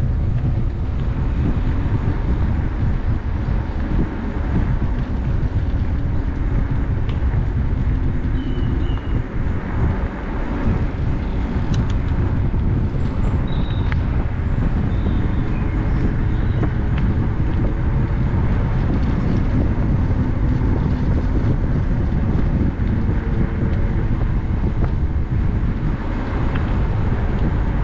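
Steady wind rumble on the microphone and tyre noise from an e-bike riding along a path, with a few faint high chirps in the middle.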